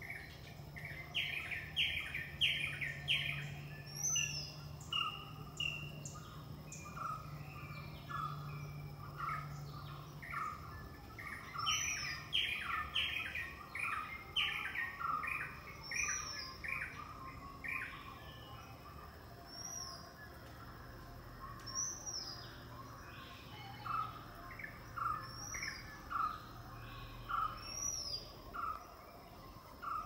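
Several birds calling together. There are quick runs of chirps near the start and again about twelve seconds in, a steady series of short calls one or two a second through most of it, and a short high note every few seconds. Underneath runs a steady high-pitched insect tone.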